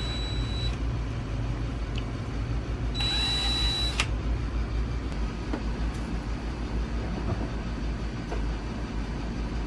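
Steady low hum throughout. A cordless drill spins briefly at the very start and again for about a second near the middle, a high whine that ends in a click.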